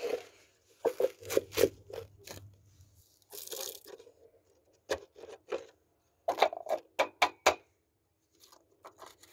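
Hands handling small plastic containers: irregular clicks, taps and knocks, with a brief rustle about three and a half seconds in.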